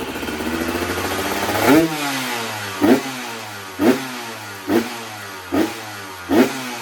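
2004 KTM SX 125 two-stroke engine running, blipped sharply six times, about once a second, with the idle dropping back between blips.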